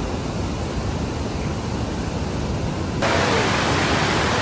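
Steady roar of rushing water from Niagara Falls, stepping up louder about three seconds in.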